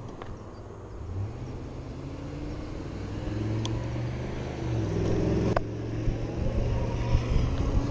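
A truck's engine accelerating as it pulls across the intersection, its pitch rising over about four seconds, over steady traffic and wind noise. A sharp click about five and a half seconds in.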